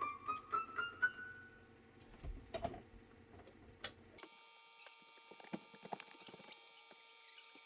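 Yamaha YPG-535 portable keyboard playing an ascending run of notes that ends about a second and a half in, followed by light key clicks and taps. From about four seconds in, a thin layer of steady high tones sounds under further light taps.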